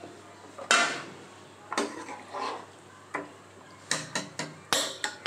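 Metal ladle knocking and scraping against the sides of an aluminium cooking pot while stirring a liquid curry. There are sharp clanks throughout, the loudest about a second in and a quick run of knocks near the end.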